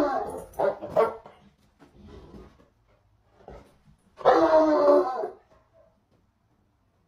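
A hound barking in drawn-out calls during rough play: one call at the start, two short ones about a second in, and a longer one of over a second about four seconds in.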